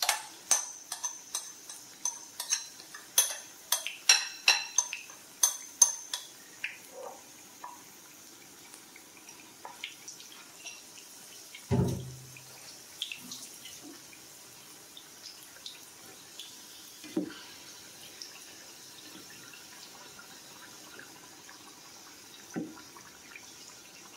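Hot oil sizzling steadily around bhalla dumplings deep-frying in a pan. In the first six seconds there is a quick run of sharp, ringing metallic clinks, and later a few single knocks, the heaviest about halfway in.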